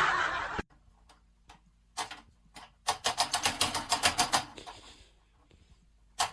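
Computer keyboard typing: a few single keystrokes, then a quick run of rapid key clicks for about a second and a half.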